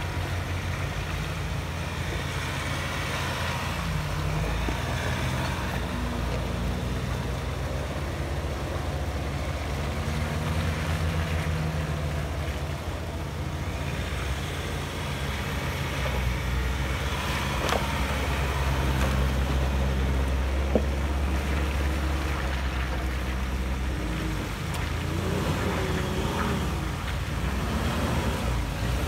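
Ford Ranger pickup engines running at low revs as the trucks crawl one after another over a rough dirt track: a steady low drone that swells as a truck passes close, with some revving near the end.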